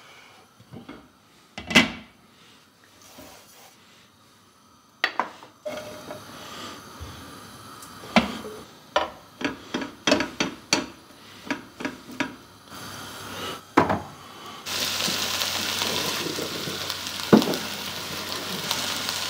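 Cooking in a frying pan: a sharp clank near the start, then a spatula knocking and scraping against the pan in quick strokes as chicken and rice are stirred. In the last third a steady sizzle of frying sets in, with one more knock.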